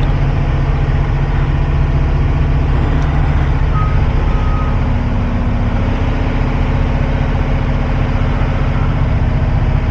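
Cat 349 excavator's diesel engine running steadily as the machine travels and turns on its tracks, with a faint short beeping tone about four seconds in.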